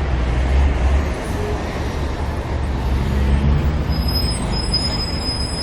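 Road traffic ambience: a steady heavy low rumble of vehicles, with a thin high whine for a second or so near the end.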